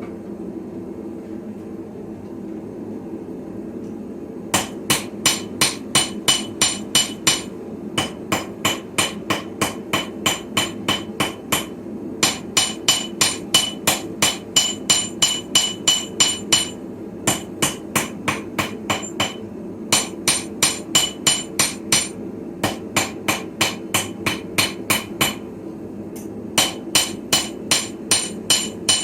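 Hammer blows on a Viking-style anvil, forging a sickle blade: quick runs of ringing strikes, about three a second, broken by short pauses. A steady low rumble runs underneath and is heard alone for the first four seconds or so.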